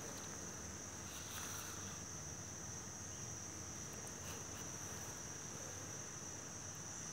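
Steady high-pitched insect song, one continuous unbroken tone, with a few faint rustles early on and about four seconds in.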